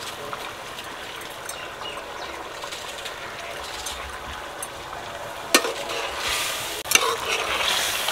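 A thick masala of tomato and yoghurt sizzles steadily in a steel pot over a wood fire as fried beef heart and kidney pieces are tipped in. A little over five seconds in, a spoon knocks against the pot and the sizzling grows louder as the meat is stirred. A second knock comes about a second later.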